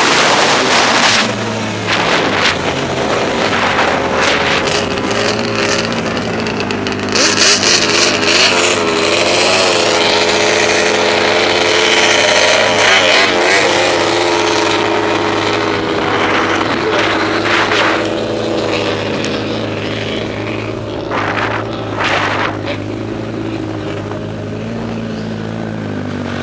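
Turbocharged snowmobile engine running at part throttle, its pitch wavering up and down, under heavy wind noise.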